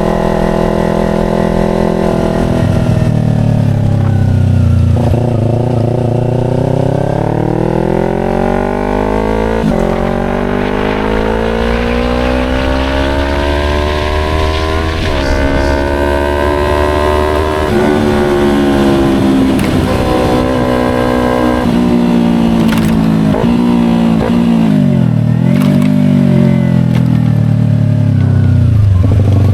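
Yamaha R25's parallel-twin engine through an SC Project aftermarket exhaust, accelerating through the gears: the revs climb and drop back at each upshift several times. It then slows down, with quick rises and falls in revs as it downshifts, and settles to low revs near the end.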